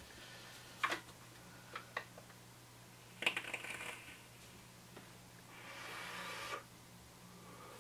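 Handling noises from a box mod with an RDA on top being held and turned: a couple of small clicks, then two short rustling hisses, the second swelling for about a second before stopping sharply, over a faint steady hum.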